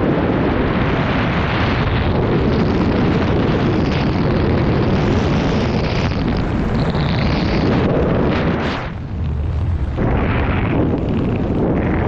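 Loud, steady rush of wind over the camera's microphone while descending under an open parachute canopy, easing briefly about nine seconds in.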